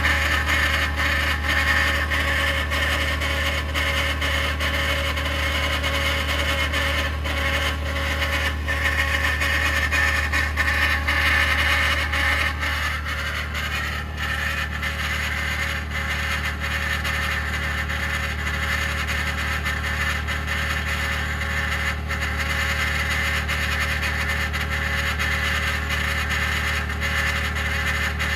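2021 Ford F-150 PowerBoost hybrid running after a remote cold start at minus 16 °C, making the really loud grinding, cavitating noise that appears only at about minus 11 °C and below; the owner suspects something pumping and the cause is unknown. Under a steady low hum the grinding goes on without a break, easing slightly about 13 seconds in.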